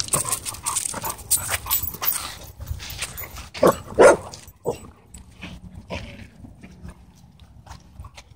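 Dogs chasing and tussling at play, with scattered scuffs and rustles and two short, loud dog barks about four seconds in.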